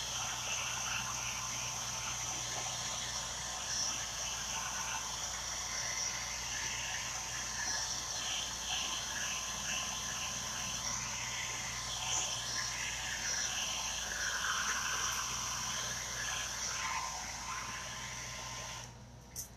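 Handheld hair dryer running steadily as it dries chalk paste on the piece, switching off near the end.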